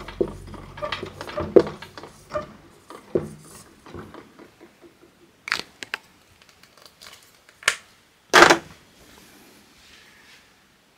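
Marker pen squeaking and scratching across a whiteboard in a quick run of short strokes while characters are written. Later come a few sharp clicks and a louder knock near the end.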